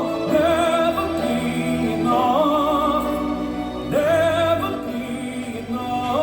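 A ballad sung with long held notes and wide vibrato over orchestral accompaniment. A new note swoops up into place about four seconds in.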